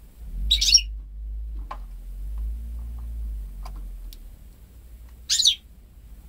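Goldfinch × canary hybrid (goldfinch mule) giving two short, sharp chirps about five seconds apart, with a low rumble underneath for the first few seconds.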